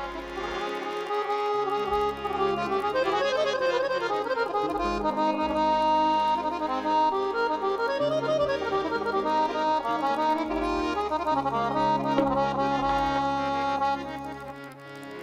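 Live band playing an instrumental introduction in traditional Punjabi style: a held, reedy, accordion-like melody over changing low bass notes. The level dips briefly near the end.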